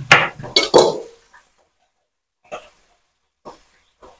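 Knife chopping chayote on a wooden cutting board: a loud cluster of knocks and clatter in the first second, then single short chops about once a second.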